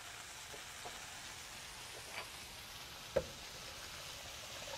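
Chicken frying in a pan on the stove, giving a quiet, steady sizzle. A few light clicks break it, with one sharper knock about three seconds in, as the milk is handled and poured into the glass blender jar.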